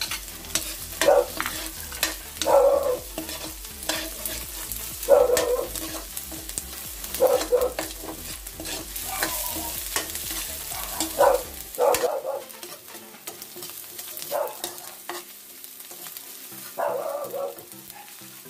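Metal spatula scraping and stirring chopped onion and garlic in a hot wok, in strokes every two seconds or so, over a steady sizzle of frying oil.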